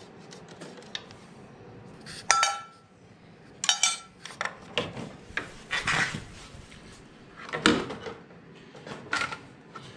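Small metal parts and a tool clinking against a steel parts tray: two sharp, ringing metal clinks about two and four seconds in, followed by lighter scattered clatter of handling parts.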